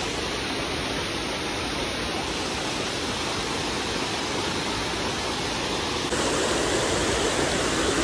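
Steady rush of water falling at a small waterfall, stepping up louder about six seconds in.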